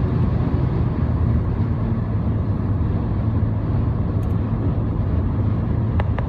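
Steady low rumble of a car being driven, heard from inside the cabin, with a couple of light ticks near the end.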